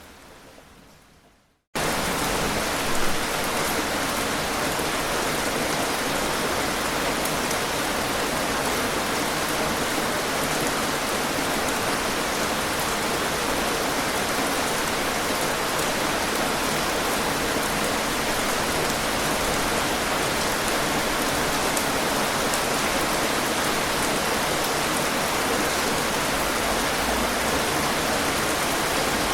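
Steady rain falling in an even, dense hiss. It cuts in abruptly under two seconds in, after a brief quieter stretch that fades away.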